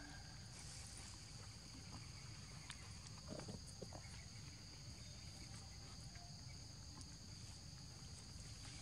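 Faint, steady drone of forest insects, a few high buzzing tones held level throughout, with a few faint ticks and rustles.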